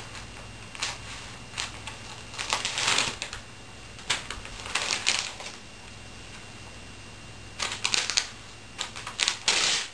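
Glossy magazine pages rustling and crinkling in irregular bursts as a toddler's hands turn and crumple them, with a louder stretch near the end.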